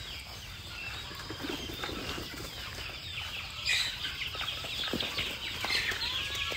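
A flock of free-range village chickens clucking, with many short high-pitched calls that grow denser from about halfway through and a brief burst of noise a little past the middle.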